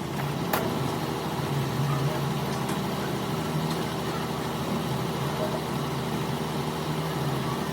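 A machine or engine running steadily with a low hum, with a single sharp click about half a second in.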